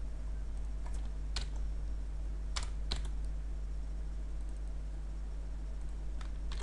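Computer keyboard keys tapped now and then: about six single sharp clicks spaced irregularly, over a steady low hum.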